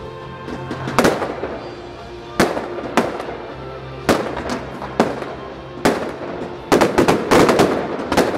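Fireworks going off, sharp bangs each followed by a short echo. They come about once a second at first, then a rapid cluster of bangs near the end.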